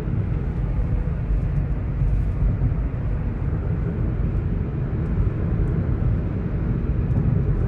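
Honda City driving at speed, with a steady low rumble of road and engine noise and faint, scattered high clicks.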